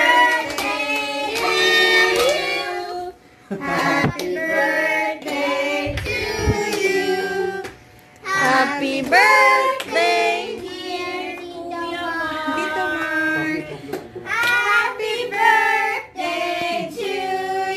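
Children singing a song, in phrases a few seconds long with short breaths between.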